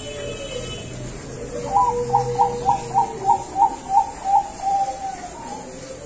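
Zebra dove (perkutut bangkok, a song-bred strain) cooing: a quick, even run of about nine short notes, about three a second, ending in one longer drawn-out note.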